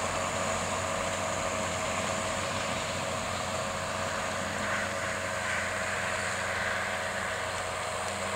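John Deere 7810 tractor's six-cylinder diesel engine running steadily under ploughing load, with a constant drone.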